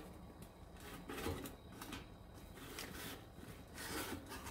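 Metal baking tray scraping and sliding against the inside of a Winnerwell stovepipe oven as the pizza is pulled out: a few short scrapes about a second in, then louder scraping near the end.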